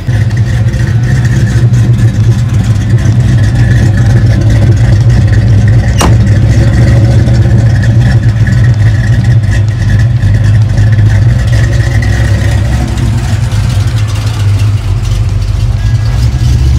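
Fox-body Mustang's Ford small-block V8, fitted with a B303 camshaft, running steadily and loudly, heard from behind the car at the exhaust tips. A single sharp click about six seconds in.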